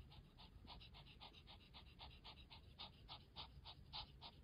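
A cat panting with its mouth open: quick, faint, even breaths, about three or four a second.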